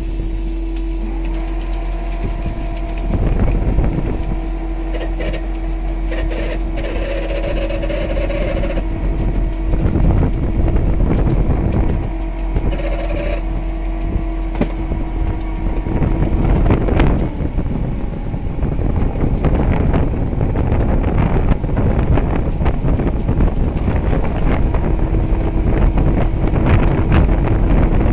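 Small fishing boat's engine running steadily at sea, with a constant hum and wind buffeting the microphone. The buffeting grows gustier and louder from about halfway.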